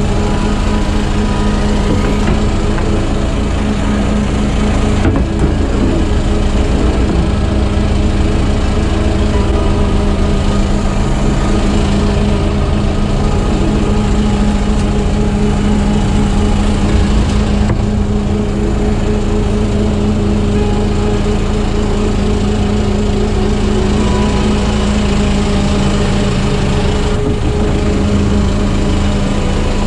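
A small fishing boat's engine running steadily at a constant speed, a continuous hum that holds the same pitch throughout.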